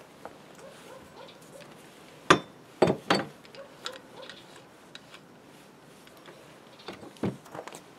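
Tools being set down on a wooden workbench: a few sharp knocks and clinks about two to three seconds in as a wooden-handled hammer is laid across a steel bench vise, then a second, smaller cluster of knocks near the end as an angle grinder is put down on the table.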